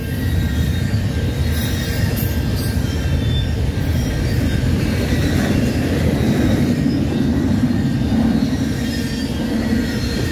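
Double-stack intermodal well cars rolling past at speed: a steady, loud rumble of steel wheels on the rails, with faint high tones above it.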